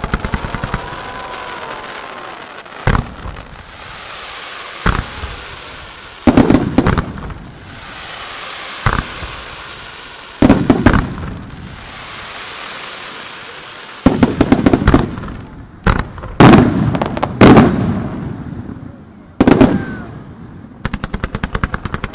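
Fireworks display of low-level fans of gold comets and fountains being fired. A rapid string of shots at the start and again near the end, several single bangs, and clusters of crackling bursts, with a steady hiss in between.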